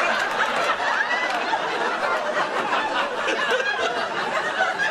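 Sitcom studio audience laughing, many voices overlapping in a steady wave of laughter.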